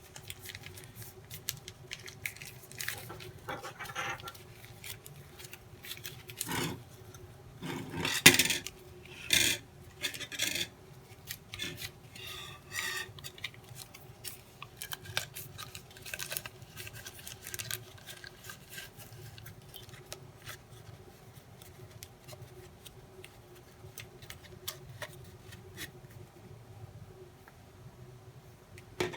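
A thin plastic model-rocket parachute being folded by hand: intermittent rustling, rubbing and small clicks, with a couple of sharper knocks about seven and eight seconds in.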